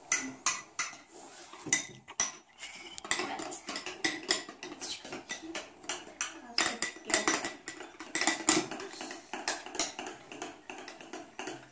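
Metal spoons clicking and scraping against bowls as thick foam slime is stirred, a quick, irregular run of clicks.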